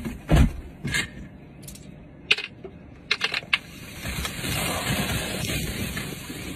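A few sharp clicks and knocks of handling, then from about four seconds in a steady hiss as soda foam erupts and sprays out of a two-litre soda bottle.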